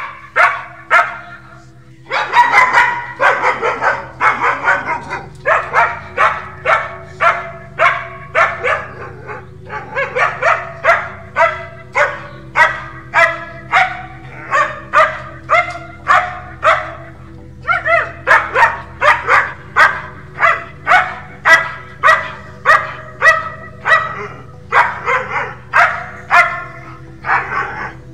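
German Shepherd dog barking over and over, about two barks a second, in quick runs with short breaks. A faint steady low hum runs underneath.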